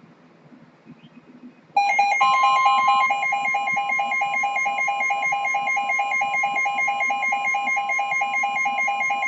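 Weather alert tones start about two seconds in. Loud, rapid beeping at about five beeps a second sounds over a steady single high tone of about 1050 Hz, the NOAA Weather Radio warning alarm tone that comes before a warning is read.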